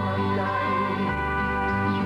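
Instrumental commercial music with sustained chords over a held bass line that shifts note about a second in.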